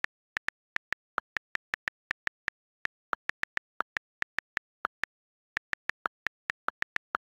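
iPad on-screen keyboard key clicks as a message is typed, about five a second in uneven runs, with a few slightly lower-pitched clicks among them. Dead silence between the clicks.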